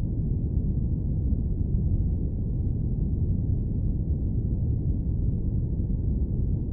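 Steady, deep airplane-cabin rumble: an even, low-pitched noise with no changes or separate events, played as white noise for sleep.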